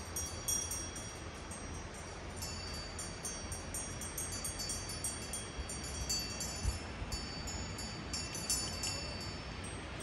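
Small metal bells tinkling irregularly: many short, high-pitched pings that overlap and ring on, over a steady low rumble.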